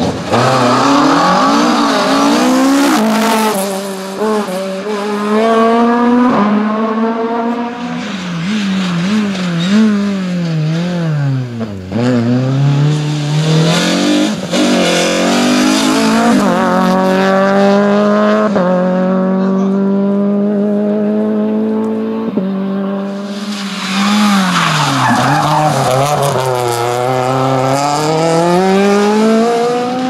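Rally car engines at full throttle, one car after another, including a Ford Escort Mk2 and a Renault Clio: the note climbs and drops with quick gear changes, falls low into corners twice and pulls hard up again.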